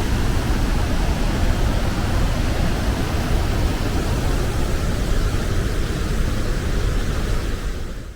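Athabasca Falls, a large glacial-river waterfall, rushing as a loud, steady wash of water noise. It cuts off abruptly at the very end.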